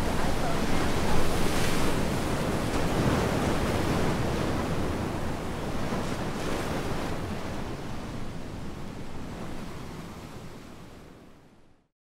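Ocean surf breaking against a rocky shore, with wind rumbling on the microphone. The sound fades out over the last few seconds.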